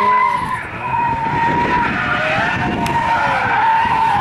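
Ford Sierra Sapphire rally car's engine under hard throttle, with its tyres squealing in a steady high whine as it slides through a tight chicane. The engine note swings up and back down about three seconds in.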